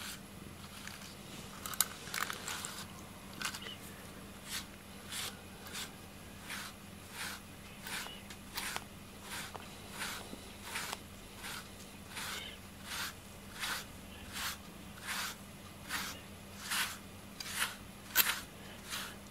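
A slicker brush with densely packed fine wire pins raking through a cat's fur in steady, regular strokes, about three every two seconds, each a short scratchy swish.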